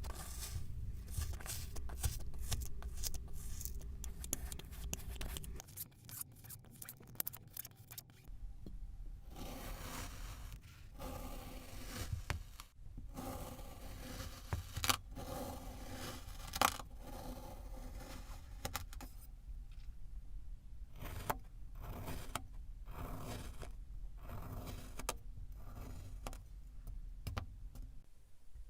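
Kinetic sand being squished and worked, giving dense runs of crackling, crunching clicks with short pauses between them.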